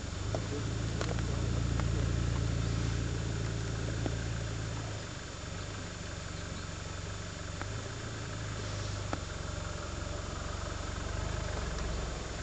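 Vehicle engine idling: a steady low hum, a little louder over the first few seconds, with a few faint ticks.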